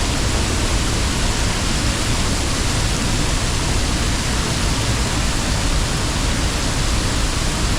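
A waterfall's steady roar of falling water, heard close up from behind the falls.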